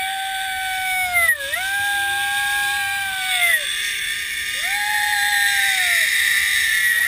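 A person on a zip line letting out long, high held yells, each a second or two long, rising at the start and dropping off at the end, with a new one starting near the end. Under them is a steady rushing hiss from the ride down the cable.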